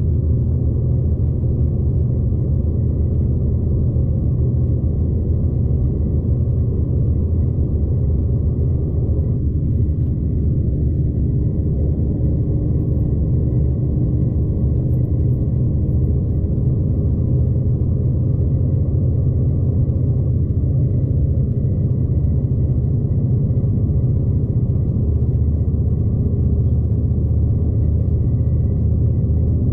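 Steady low rumble of a V/Line passenger train running along the track, heard from inside the carriage.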